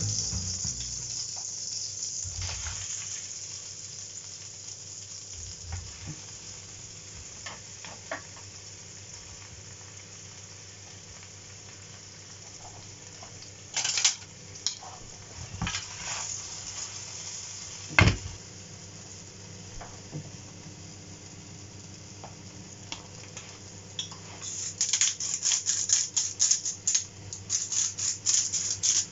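Chopped king bolete (porcini) pieces sizzling in butter in a frying pan, a steady high hiss with a few sharp knocks of pan and utensil around the middle. Near the end a pepper mill grinds over the pan in a quick run of clicks.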